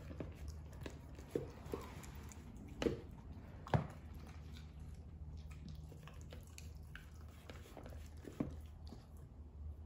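A Welsh corgi eating from a slow-feeder bowl: scattered clicks and knocks as its teeth and muzzle hit the bowl, with chewing. The loudest knocks come just before 3 s and just before 4 s, and another near the end.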